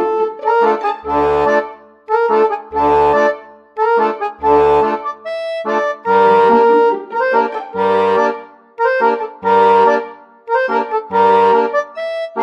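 Instrumental background music: held melody notes and chords over a bass note that returns about every second and a half.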